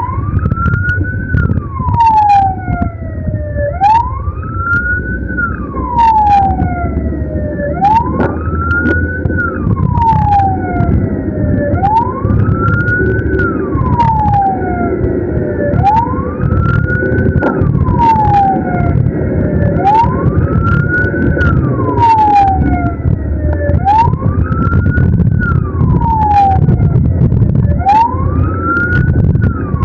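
Ambulance siren on a slow wail, rising and falling about once every four seconds, over the steady rumble of the ambulance driving.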